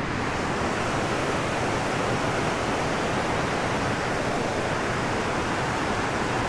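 Water pouring over a river dam spillway: a steady, even rushing.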